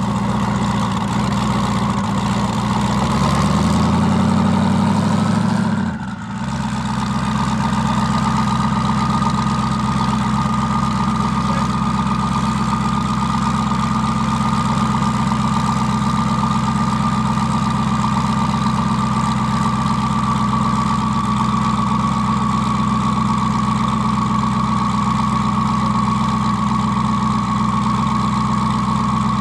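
Twin-turbo Dodge Challenger SRT Demon's V8 engine, its revs climbing over the first few seconds and dropping about six seconds in, then running steadily with a high whine above the engine note.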